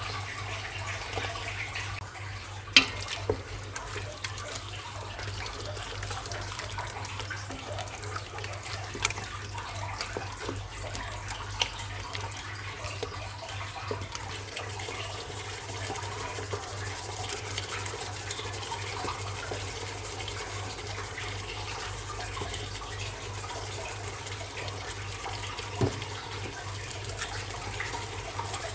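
Kitchen cooking noise: a steady watery hiss over a low hum, with a few sharp clanks of utensils on cookware. The loudest clank comes about three seconds in and another near the end.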